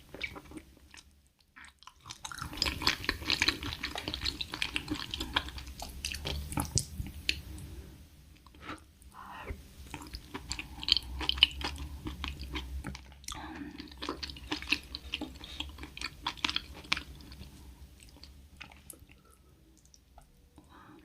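A person chewing and biting food, with wet clicks, smacks and occasional crunches, in stretches of several seconds separated by short pauses and tailing off near the end.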